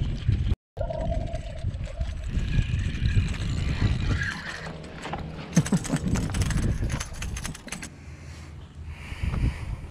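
Wind buffeting the microphone while a Shimano Stradic spinning reel is cranked to bring a fish in, with a dense run of rapid clicking about halfway through.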